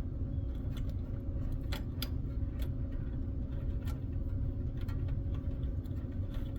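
Faint scattered clicks and ticks of a small plastic front-panel connector being worked onto motherboard header pins, over a steady low background hum.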